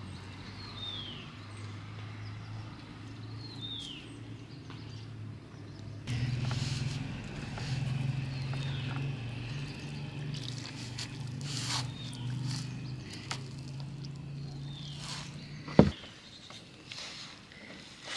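Hands mixing flour and water into dough in a metal bowl, with water poured from a glass jug, over a steady low hum. Short falling whistled bird calls come every few seconds, and there is one sharp knock near the end.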